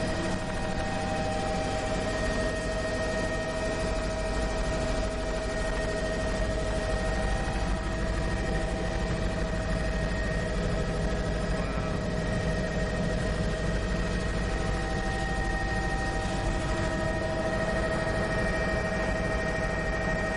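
Helicopter in flight, heard from inside the cabin: the engine and rotors give a steady low rumble and hiss, with a steady high whine on top.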